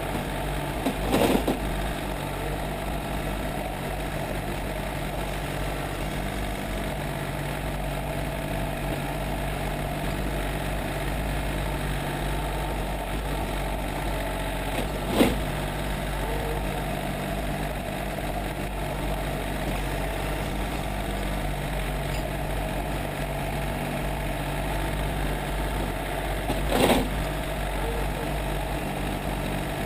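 John Deere 770 compact tractor's three-cylinder diesel engine running steadily while plowing snow with its front loader. Three short knocks stand out: about a second in, midway, and near the end.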